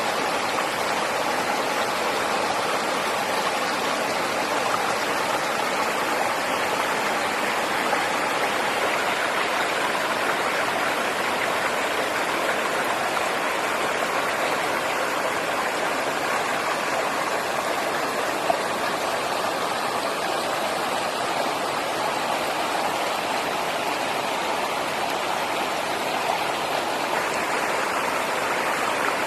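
Steady rush of flowing water, even and unbroken, with one brief tick about two-thirds of the way through.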